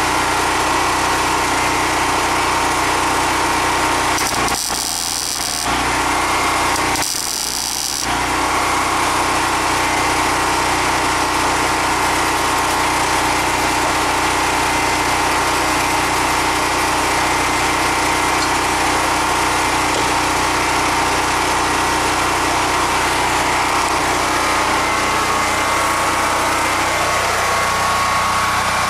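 A small engine running steadily at an even speed. The sound drops briefly twice, about five and seven seconds in.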